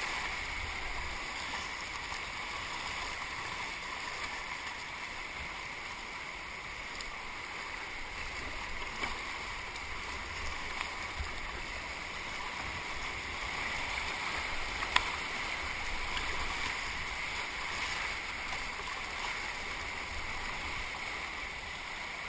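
Rushing whitewater of a river running high after a flood, heard from a kayak in wave trains: a steady, even rush of churning water with small splashes of paddle strokes. A single sharp tick about two-thirds of the way in.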